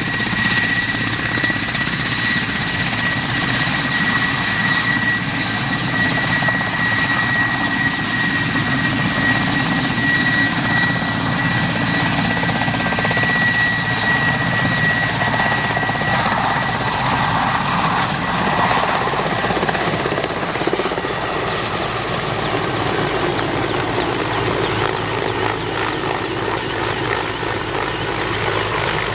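Mi-8T helicopter with its twin TV2-117 turboshaft engines and main rotor running at take-off power, a loud steady rotor-and-turbine noise with a high turbine whine, as it lifts from a low hover, passes close and climbs away. The whine fades in the second half and the whole sound grows a little fainter near the end.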